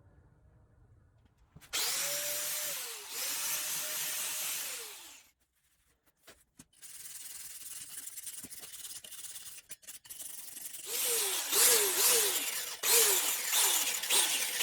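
A handheld power tool scrubbing heavy rust off a cast-steel anvil. It runs in two short goes that end about five seconds in, then runs harder near the end, its motor pitch dropping and recovering again and again.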